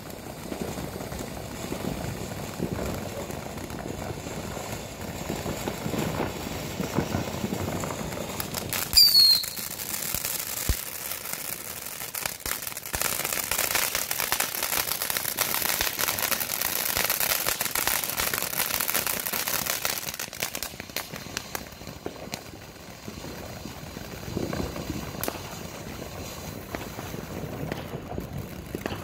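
Highballin ground fountain firework spraying sparks: a steady hiss with crackling throughout. A short falling whistle comes about nine seconds in, and the crackling grows louder and denser from about twelve to twenty seconds.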